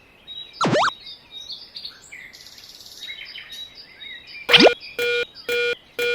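Cartoon sound effects: a swooping whistle-like pitch glide, faint chirps, a second swoop, then a railroad crossing bell dinging steadily about twice a second.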